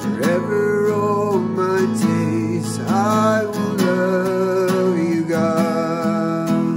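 A man singing a slow worship song, accompanying himself on a strummed Takamine acoustic guitar.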